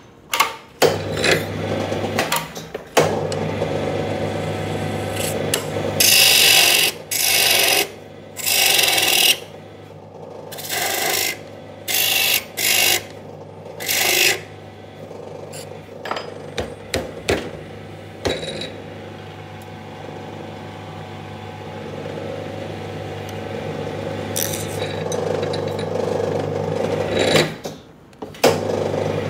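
A small electric motor spinning a drill chuck that holds a wooden brush handle, its steady hum broken by loud scraping as a hand-held blade shaves the turning wood. The scraping comes in several stretches of one to three seconds, mostly in the first half, and the motor stops briefly near the start and near the end.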